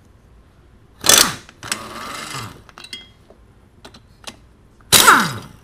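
Air-powered wrench run in bursts to remove the top engine mount bracket bolts. There is a loud burst about a second in, a quieter run just after, a few light metal clicks, and a second loud burst near the end that winds down in pitch.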